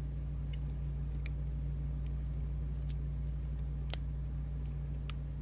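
Metal tweezers clicking against the pins and springs of a pin-tumbler lock core while the pins are drawn out of their chambers: a few light, sharp clicks, the loudest about four seconds in and another near the end, over a steady low hum.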